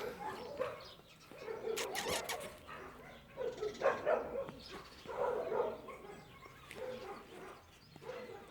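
Dogs barking at intervals, several separate barks, with a few sharp clicks about two seconds in.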